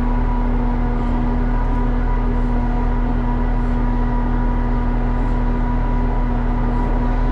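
The diesel engine of a 1984 Peterbilt 362 cabover running steadily at an even speed, with a strong low rumble and a steady hum, its fuel filters freshly replaced after a low fuel pressure problem.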